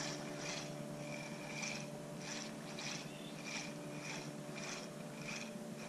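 Spinning reel being cranked to retrieve a lure, a faint rhythmic whir that repeats about every half second with the turns of the handle, over a steady low hum.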